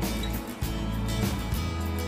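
Background music with held bass notes and a regular beat.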